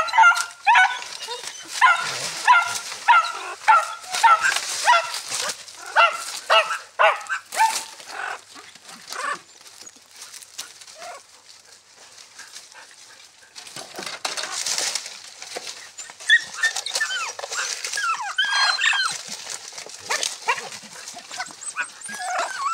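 Dogs barking in a fast run of short, high yips, two or three a second, for the first nine seconds or so, then a lull. From about fourteen seconds in come more yelps and whines, some rising and falling in pitch.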